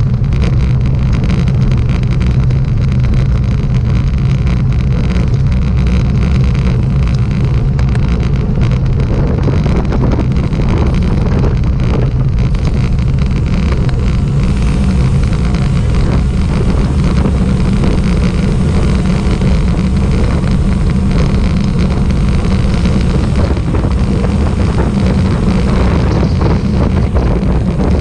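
A motor vehicle's engine running steadily under way, a constant low drone with wind noise on the microphone.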